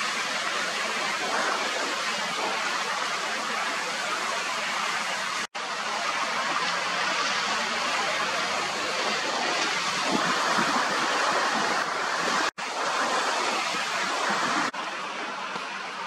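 Steady rushing wind, an even hiss with no bird calls in it, cut off abruptly for an instant twice, about five and a half and twelve and a half seconds in.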